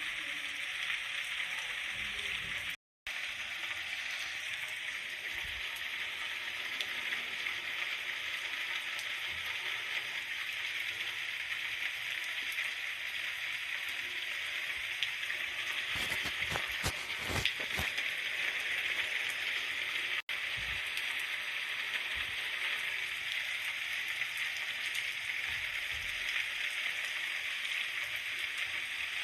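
Steady rain falling, an even hiss of drops. A few louder drop hits stand out around two-thirds of the way through, and the sound cuts out completely for a moment about three seconds in.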